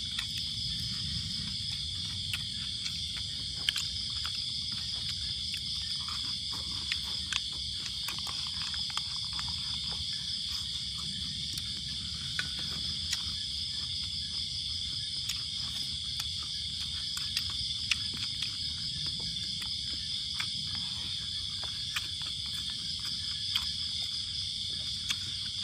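Steady night chorus of crickets and other insects: a continuous high-pitched trill, with small scattered clicks.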